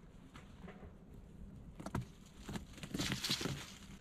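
A few sharp woody knocks about two seconds in, then a spell of crackling and rustling from dead wood being handled among dry leaves and twigs.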